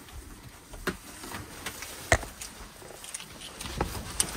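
Yellow rubber glove being pulled onto a hand: a few light snaps and rustles, the sharpest about two seconds in.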